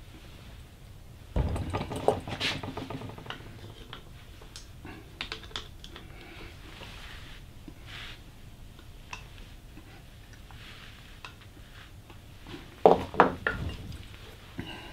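Steel tension spring and pliers clicking and clinking against a bench vise while the spring's end loop is bent out. A louder burst of metallic clatter comes about a second and a half in, scattered light clicks follow, and another loud cluster of knocks comes near the end.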